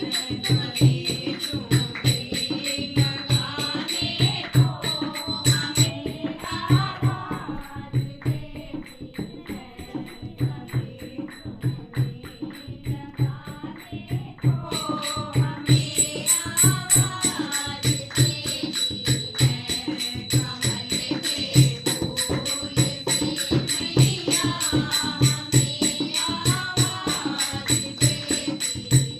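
Devotional bhajan music: singing voices over a steady, rhythmic drum beat with jingling percussion like a tambourine.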